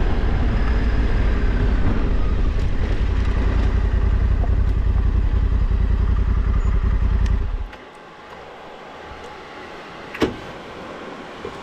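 Honda Africa Twin's 1084 cc parallel-twin engine running loud and low, then cutting off abruptly about seven and a half seconds in as the bike stands still. A single sharp click follows a couple of seconds later.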